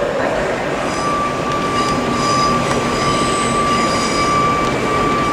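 Southern Class 377 Electrostar electric multiple unit rolling slowly into a curved platform. A thin, steady, high squeal from the wheels on the curve sets in about a second in.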